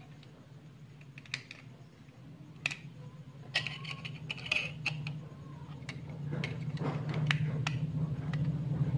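Scattered small plastic clicks and rattles from a wireless presentation clicker being handled as its battery is fitted and its battery cover put back. A low rumble grows louder from about six seconds in.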